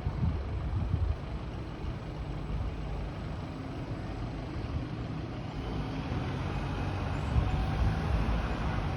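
Gusty wind rumbling on the microphone over city street traffic, with a large vehicle's engine running; the rumble grows louder toward the end.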